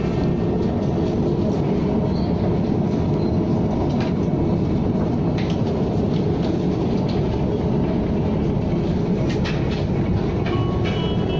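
KTM ETS electric train running along the line: a steady rumble of wheels on rail with a few faint clicks.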